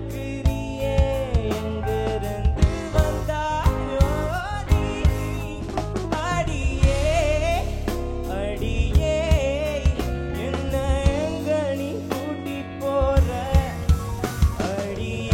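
A singer performing a song over backing music. The sung melody wavers and bends in pitch, over bass and a steady drum-kit beat whose hits stand out more near the end.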